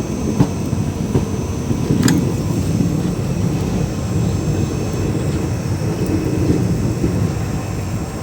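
Steady low rumble of a moving passenger train heard from inside a coach, with a few sharp clicks and knocks, the strongest about two seconds in.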